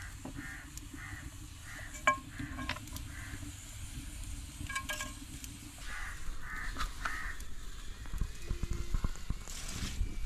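Flatbread sizzling as it fries in oil on an iron tawa over a wood fire, with a metal knife tapping and scraping on the pan, sharply about two seconds in and again near five seconds.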